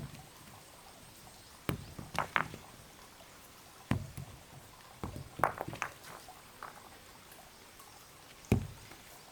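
A series of irregular knocks and thuds with short scrapes, a second or more apart, the sharpest one near the end.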